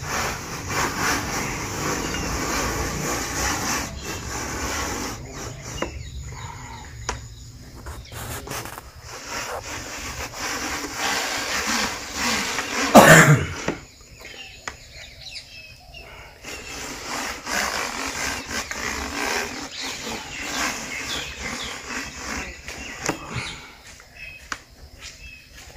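Fibre telescopic harvesting pole being extended by hand: sections sliding and rubbing with small clicks and handling noise, and one sharp loud knock about 13 seconds in.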